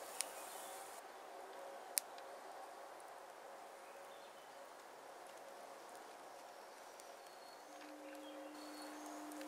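Small wood fire burning under a stone cooking slab, a faint steady hiss with two sharp pops about two seconds apart. A low steady buzz comes in near the end.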